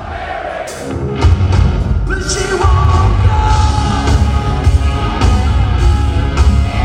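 Live rock band playing loud through a PA: electric guitars, bass, drums and keyboards, with singing. The sound is thinner for the first second, then the full band comes back in with heavy bass and drums.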